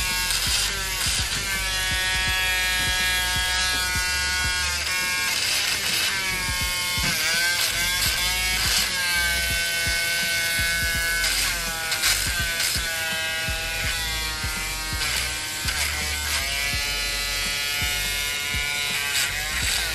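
Electric nail drill sanding acrylic nails: a steady motor whine that dips in pitch and recovers several times.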